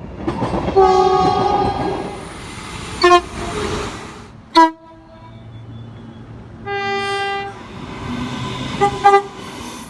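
Train air horn sounding a series of blasts: a long one over the rumble of the moving train, two short toots, another long blast, then two quick short toots near the end.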